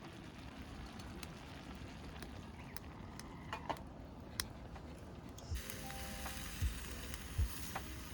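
Food sizzling in a pan over a camp fire, with a few light clicks and knocks of cooking utensils. The sizzle grows louder and fuller about five and a half seconds in. Soft background music plays.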